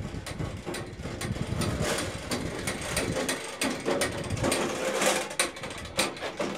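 Spring-loaded grounding-wire reel rewinding its coated steel cable, a rapid irregular clicking and rattling as the reel's ratchet turns and the wire feeds back onto the drum.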